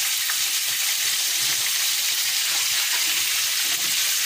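Flour-coated chicken pieces deep-frying in hot oil in a pan, a steady bubbling sizzle.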